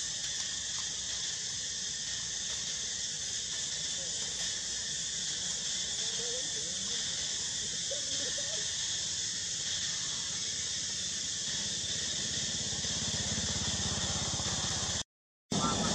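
Steady, high-pitched buzzing of an insect chorus. A few faint short rising calls come through between about six and nine seconds in, and the sound cuts out for half a second near the end.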